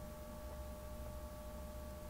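Steady room tone: a low hum with a faint steady whine, and a couple of faint ticks about half a second and a second in.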